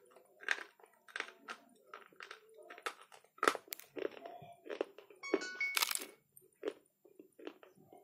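Lion brand natural-stone slate pencils being bitten and chewed: irregular sharp crunches, one or two a second.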